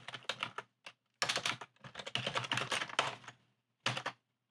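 Typing on a computer keyboard: a quick run of sharp keystrokes, thickest from about a second in to about three seconds, with one last keystroke near the end.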